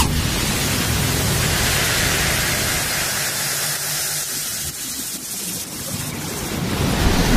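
A steady rushing hiss with no music. It eases off midway and swells again near the end.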